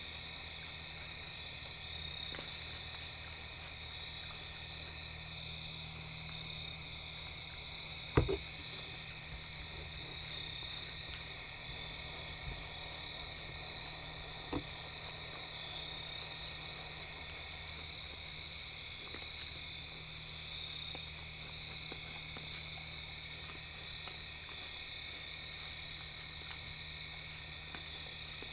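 Night chorus of insects, a steady high-pitched trilling, with frogs croaking underneath. A single sharp knock about eight seconds in, and a fainter one about six seconds later.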